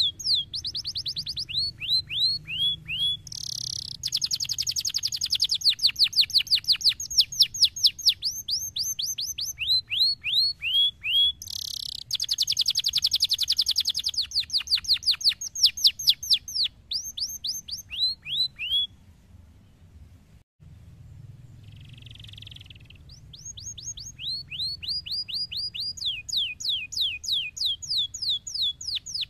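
Domestic canary singing: rapid runs of repeated downward-slurred whistled notes, several a second, broken by dense buzzing rolls. The song stops for a few seconds past the middle, with one short buzz, then the note runs start again.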